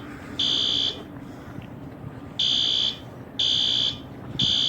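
System Sensor P2RK fire alarm horn sounding in the temporal-3 evacuation pattern: half-second blasts of a high, buzzy tone, one about half a second in, then a pause of about a second and a half, then three more blasts one second apart.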